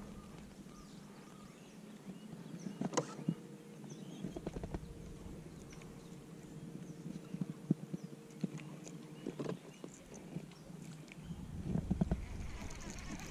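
Light, scattered knocks and clicks of gear and hull on a bass boat on calm water. A louder knock comes about three seconds in. A faint steady hum runs through the middle few seconds, and the knocks pick up near the end.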